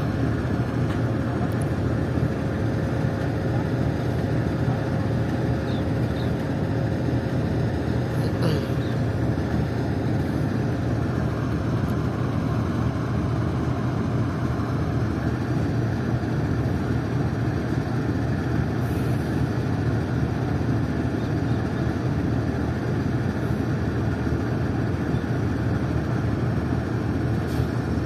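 A GEU40 diesel-electric locomotive idling at a stand, a steady deep engine drone, with a faint whine that fades out about halfway through.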